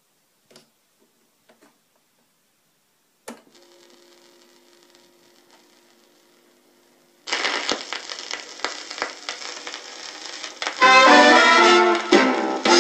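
A 1960s portable Philips record player is switched on with a click and hums steadily. About seven seconds in, the needle sets down on a 7-inch vinyl single and music starts from the player's built-in speaker, with surface crackle. About eleven seconds in, it swells into a loud brass-led band.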